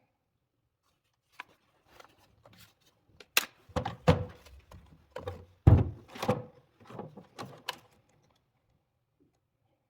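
Irregular knocks and thuds of hard objects being handled and set down, about a dozen over six seconds, the loudest about three and a half and nearly six seconds in.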